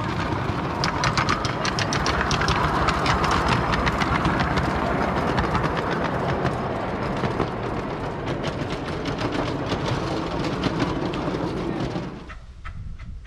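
Miniature steam locomotive hauling a train of open passenger carriages past, a steady rumble with a fast, regular run of clicks. The sound falls away about a second before the end.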